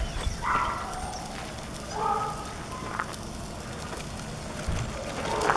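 Footsteps and a pet stroller's wheels rolling over a gritty road, with scattered clicks and thumps and a few short, high squeaky tones.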